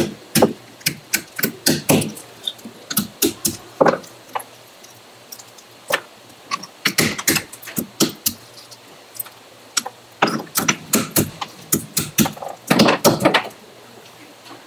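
Conch shells being cracked open with a hammer on a flat stone block: sharp, irregular taps and cracks of breaking shell, coming in quick clusters with short pauses between.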